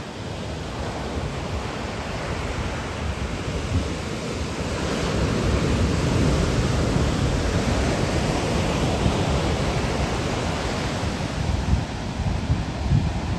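Ocean surf washing ashore: a wave's rush swells about a third of the way in and slowly eases off. Wind buffets the microphone with a gusty low rumble.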